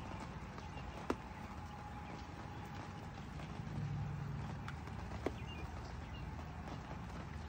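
Steady light rain falling on a wet wooden deck, with a few sharp drips tapping close by, the loudest about a second in. A low rumble swells briefly around four seconds in.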